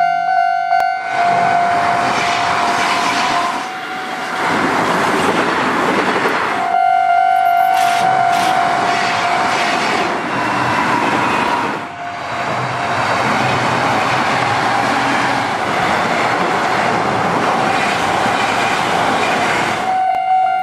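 Kintetsu commuter train passing over a double level crossing, its wheel and rail noise starting about a second in and stopping abruptly near the end, with a brief high whine about eight seconds in. The crossing's steady warning tone sounds under the train and is heard on its own before and after it.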